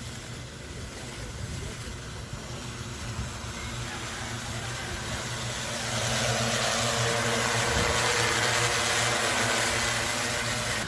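Agricultural crop-spraying multirotor drone flying, its propellers humming over a rush of air. It grows louder about six seconds in.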